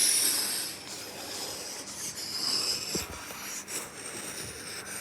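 Small Carrier air conditioner running: a steady rushing hiss of air with faint high whistling tones. It is loudest at the start and eases off over about the first second.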